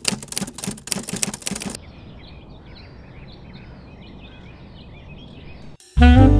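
A quick run of sharp clicks, about eight a second, for just under two seconds. Then faint steady room hiss with small bird chirps, and music with saxophone starting near the end.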